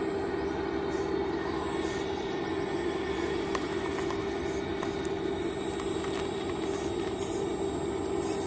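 Radio-controlled scale excavator's motor running with a steady drone while the boom and bucket work through brush, with a few faint clicks.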